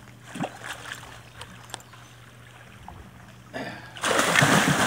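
A large hooked pirarucu (arapaima) thrashing at the surface right by the bank: a few faint drips and ticks, then a sudden heavy splash about three and a half seconds in, with churning water loudest near the end.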